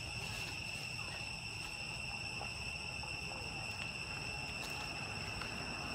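Steady high-pitched insect drone: one unbroken tone with overtones, over a faint low rumble.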